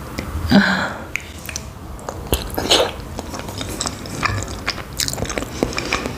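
Close-up eating sounds of small khinkali dumplings in cream sauce being bitten and chewed, with many small wet mouth clicks. There are louder bites about half a second in and again near three seconds.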